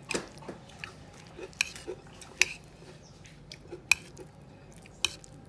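Metal spoon clinking and scraping against a plate while eating, with about five sharp clinks spread over a few seconds and softer ticks between them.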